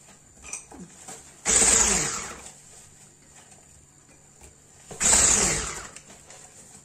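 Electric hand mixer with its beaters in cake batter, switched on in two short bursts of under a second each, about three and a half seconds apart; each time the motor's pitch falls as it winds down.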